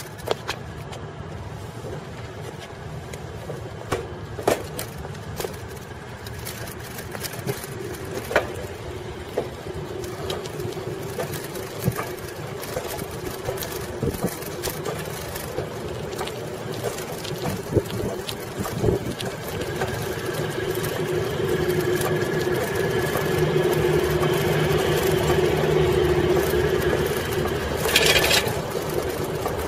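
Ride noise picked up by cameras on a Coker Monster Cruiser bicycle with 36-inch tires: steady rolling noise with frequent small clicks and rattles from the bike. A steadier hum swells in the second half and fades just before the end, with a sharp knock near the end.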